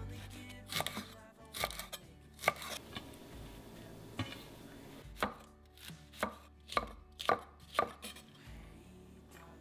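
Kitchen knife chopping perilla leaves and red cabbage on a larch end-grain wooden cutting board: single sharp knocks of the blade on the wood, uneven at first, then a steady run of about two chops a second in the second half.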